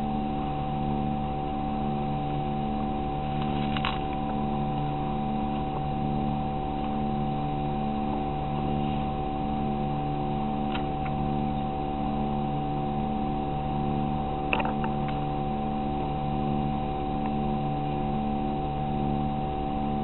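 A steady mechanical hum of several tones with a slight regular pulsing, broken by three short faint clicks, the loudest about fifteen seconds in.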